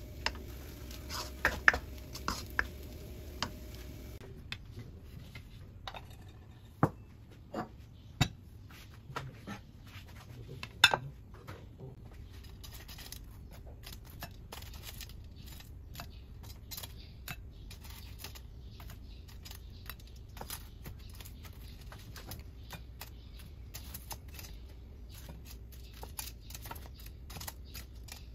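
A wooden spatula scraping and tapping fried rice around a pan, then, about four seconds in, metal tongs clicking and knocking as spring rolls are lifted from a dish and set on plates. Scattered sharp clicks run over a steady low hum.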